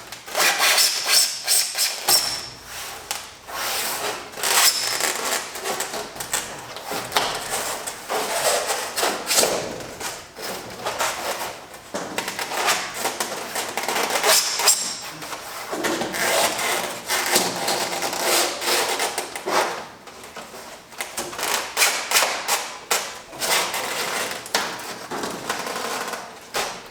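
EPS foam insulation panel being bent and worked into a metal garage door section: continuous rubbing and scraping of foam against the door, broken by many short knocks and clicks.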